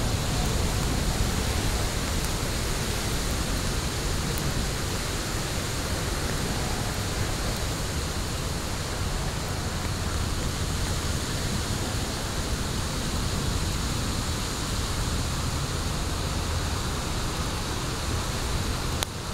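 Wood fire burning in a fire pit: a steady rushing noise from the flames with a low rumble and a few faint ticks.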